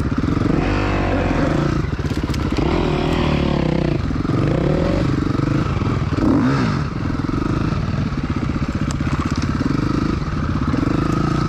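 Dirt bike engine, heard close up from the rider's position, revving up and down again and again as the bike is ridden over rough ground, with a few knocks and rattles from the bike.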